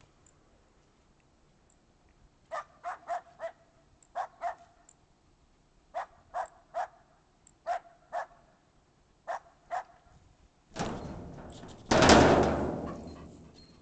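A small dog barking in short, sharp volleys of two to four barks, several times over. Near the end comes a louder noisy rush that fades away over a second or so.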